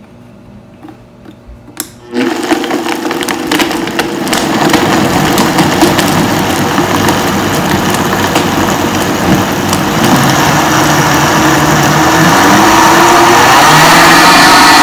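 Vitamix blender switched on with a click about two seconds in, its motor then running and growing steadily louder as it blends ice and frozen pineapple chunks with liquid. The motor's pitch rises near the end.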